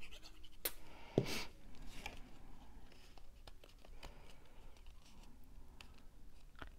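Quiet handling of cardstock pieces: faint ticks and rustles as paper layers are pressed and smoothed together by hand, with a sharp click and then a short knock and brushing sound about a second in.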